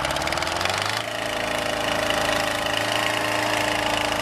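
Old motor grader's engine running as the machine drives past, its pitch rising over the first second and then holding steady.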